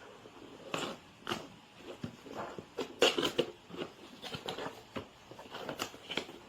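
Irregular clicks, taps and rustles of something being handled, loudest about three seconds in; no hair dryer is running.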